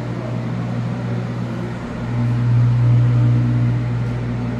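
Steady low mechanical hum of water-damage drying equipment running, swelling a little about two seconds in.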